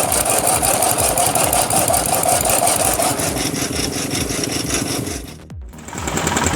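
A power saw cutting through wood with a fast, steady pulsing from the machine. About five and a half seconds in, the sound drops away briefly and comes back changed, with a steady high whine.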